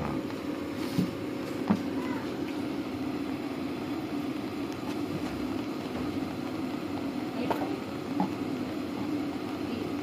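Kue putu steamer cart whistling steadily as steam escapes through its whistle while the steamer is covered. A few light clicks are heard over it.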